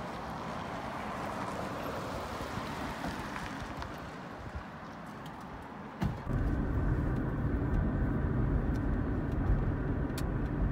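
Street noise with the even hiss of passing traffic, then, after a sudden change about six seconds in, a car's engine running with a steady low rumble heard inside the cabin.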